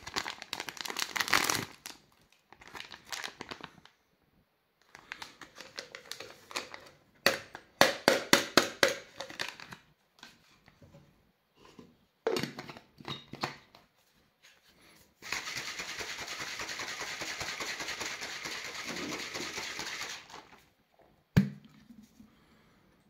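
Foil sachet of protein powder crinkling and rustling as it is opened and emptied, with clicks and taps from a stainless steel shaker. Then about five seconds of steady shaking of the closed shaker to mix the powder with water, followed by a single sharp knock.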